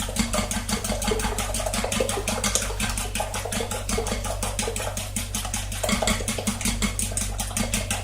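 Eggs being beaten with a fork in a bowl: a fast, even clicking of the tines against the bowl.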